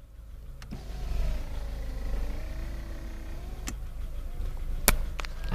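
A car engine idling under two cats in a standoff yowling, with long, low, wavering cries.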